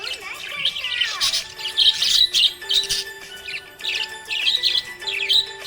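Small pet parrots chirping and twittering in quick, continuous bursts, over a background of steady held musical tones.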